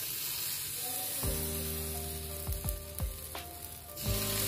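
Steady sizzling of a burger bun and fried egg on a hot iron tawa, with background music of sustained notes coming in about a second in.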